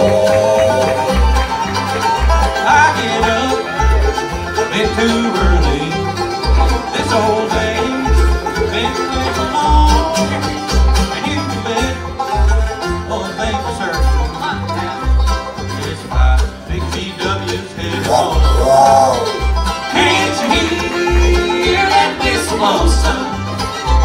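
Live bluegrass band playing an instrumental break: banjo, fiddle, mandolin and acoustic guitars over an upright bass plucking a steady beat.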